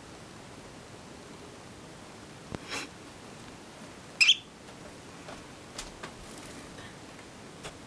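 One short, loud, sharp chirp from a small pet parrot about four seconds in, over steady faint hiss. A brief soft rustle comes before it and a few faint taps follow.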